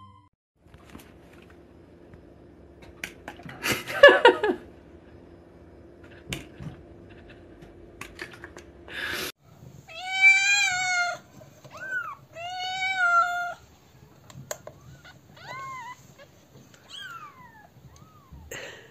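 Cat meowing: two long meows of about a second each, then several short, softer mews. A brief, louder rasping sound comes earlier, about four seconds in.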